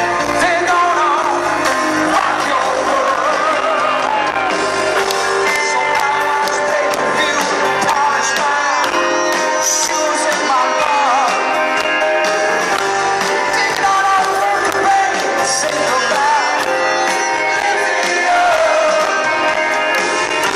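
Live pop-rock band music with a male lead vocal, loud and steady, recorded from within the concert crowd.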